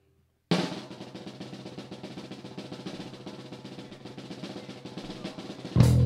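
Rock drum kit playing a fast, sustained snare drum roll that starts about half a second in, then the full band comes in loudly near the end with bass and guitar.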